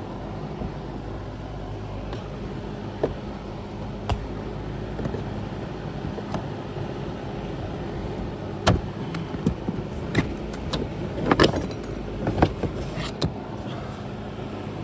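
Scattered sharp clicks and plastic rattles as trim-clip pliers work the plastic push-pin retainers and a lower dash trim panel comes loose, with a quick run of clicks about nine to thirteen seconds in, over a steady low hum.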